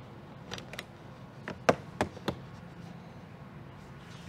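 A quick run of about six sharp plastic clicks and snaps, the loudest about a second and a half in, as a trim piece on an Acura ILX's interior door panel is pulled loose from its retaining clips.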